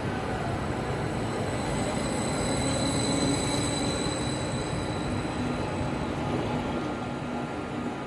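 A train moving through the station: a steady rumble with thin, high-pitched tones above it, swelling a little around the middle and easing off near the end.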